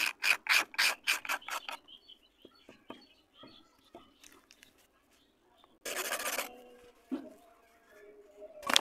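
A knife blade scrapes the edge of a dry red clay (multani mitti) ring in quick rasping strokes, about three a second, stopping about two seconds in. Soft gritty rustling of the clay and powder follows, then a brief loud sandy rush about six seconds in and a dull thump. Near the end a sharp crack, as the dry clay ring snaps.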